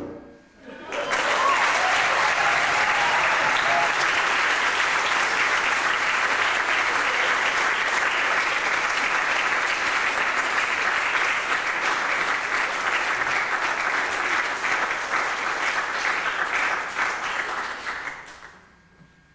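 Audience applauding: a dense, steady clapping that starts about a second in, holds, and dies away near the end.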